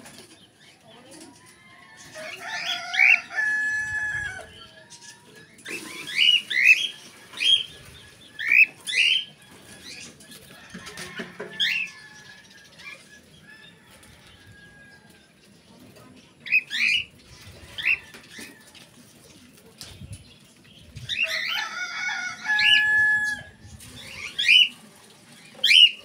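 Cockatiel chirping: short, loud, rising chirps, some single and some in quick runs of several. Twice, a longer, lower call with several held tones lasts a couple of seconds.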